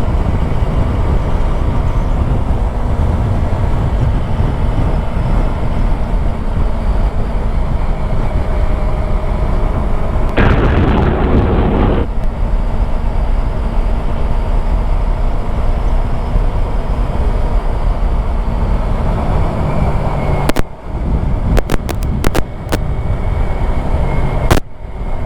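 Wind buffeting a helmet-mounted microphone while riding a Yamaha YZF-R3, with the bike's parallel-twin engine running steadily underneath. A louder rush of noise lasts about a second and a half midway. Near the end the sound cuts out several times with sharp clicks.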